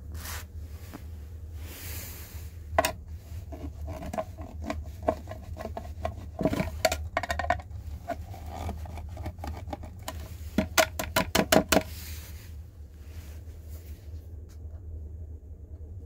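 Small metal tools and parts clinking, tapping and scraping, with a quick run of about eight clicks about two-thirds of the way in, over a steady low hum.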